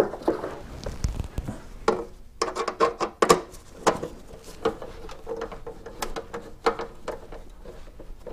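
Irregular light clicks and knocks from a hand tool and gloved hands against a motorcycle's diamond-plate belly pan, several with a short metallic ring.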